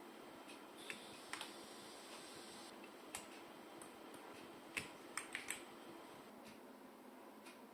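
Scattered single keystrokes on a Vortex GT-6 mechanical keyboard, sharp separate clicks with pauses between them and a quick run of three about five seconds in, over a faint steady hiss.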